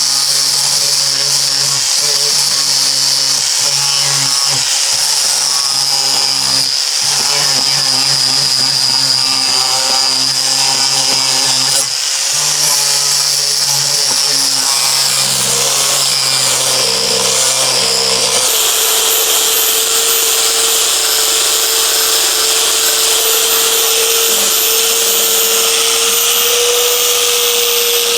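Electric grinder running continuously on the truck's sheet-steel rocker area with a steady high whine. About two-thirds of the way through, its pitch changes abruptly to a lower, steady note.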